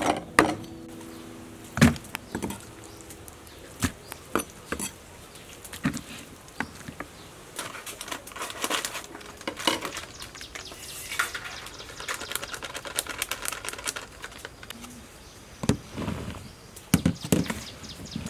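Food-prep handling sounds: scattered light knocks and taps of bowls and utensils on a table, a plastic packet crinkling about eleven seconds in, then a cluster of louder knocks and rustling near the end as eggplant sticks are tossed by hand in flour.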